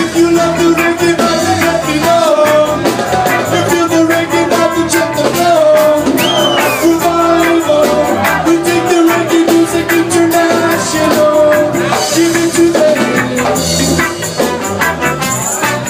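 Live roots reggae band playing, with a singing voice over held notes and a steady beat.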